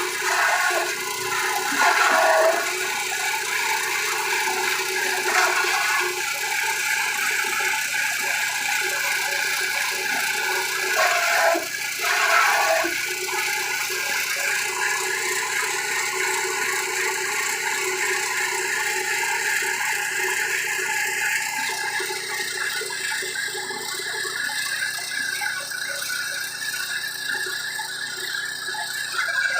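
Grass chopper machine running steadily, with a mechanical whine and rattle and brief louder surges about 2 and 12 seconds in.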